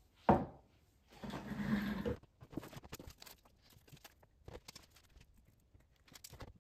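A ceramic mug set down on a wooden desk with one sharp knock just after the start, then about a second of paper rustling, followed by light scattered taps and scratches of handling a sticky note and writing with a pen in a notebook.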